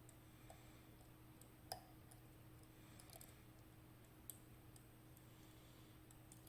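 Faint, scattered clicks of a lock pick working the pins of a KABA 14 dimple lock under turning tension, with two sharper ticks, one about two seconds in and one about four seconds in.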